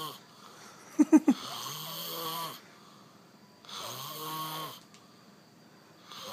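A man snoring heavily and deeply, each snore a drawn-out rasp with a pitched hum that rises and falls, coming about every two seconds with quiet gaps between. About a second in there are three short, sharp, louder sounds in quick succession.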